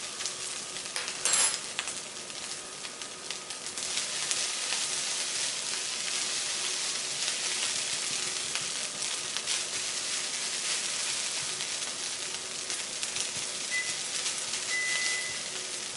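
Fried rice with pork belly, egg and leek sizzling over medium heat in a non-stick frying pan, with a silicone spatula stirring and scraping it and making light ticks throughout. There is a sharp knock about a second in. Near the end a faint high steady tone comes and goes.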